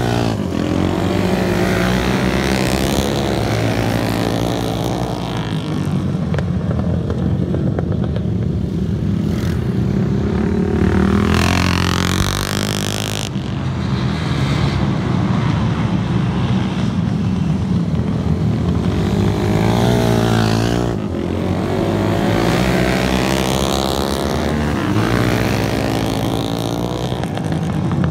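Several vintage dirt-track racing motorcycles running flat out around an oval, engines rising and falling in pitch as they accelerate out of the turns and back off into them. About halfway through, one engine climbs sharply in pitch as it passes close by.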